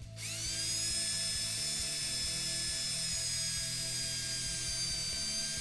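Cordless drill running steadily while drilling a shallow hole into a wooden board. Its whine spins up quickly just after the start and then holds an even pitch, sagging slightly, with the bit depth set so it doesn't go through the board.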